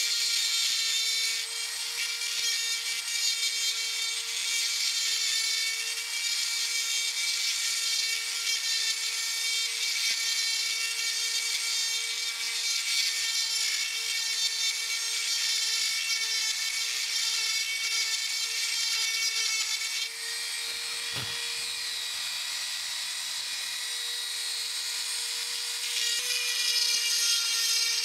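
Flex-shaft die grinder running with a steady high whine while its small burr cuts an oil groove into the cast-iron ways of a metal planer, a hissing grinding noise over the whine. About 20 seconds in the grinding noise drops off with a single click, then it builds again near the end.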